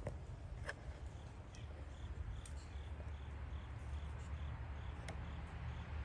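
A small animal's short high chirp, repeated evenly about two and a half times a second, over a low rumble with a few sharp clicks.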